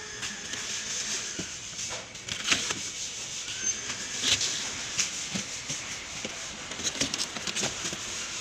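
Clear plastic wrapping crinkling and rustling as it is pulled off a ceramic toilet bowl in its cardboard box, with irregular crackling and a few sharper clicks.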